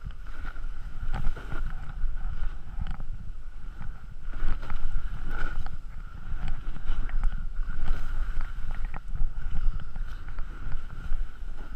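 Muffled rumble of rushing wind and snow on an action camera in its waterproof housing as the rider slides and turns through deep powder, with scattered scrapes and clicks.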